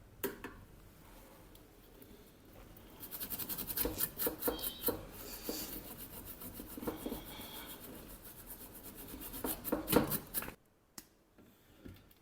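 Quick repeated scraping strokes of a small hand tool on a hard surface, building up about three seconds in and stopping abruptly about ten and a half seconds in; a sharp click comes just after the start.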